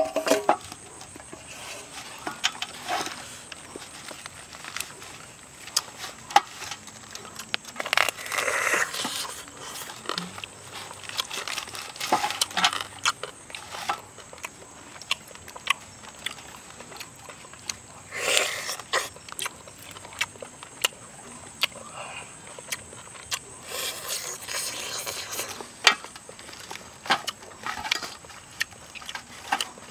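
Whole roasted duck being torn apart by hand and eaten: the crisp skin crackles and the meat tears, with many scattered sharp clicks and several short rustling bursts of tearing.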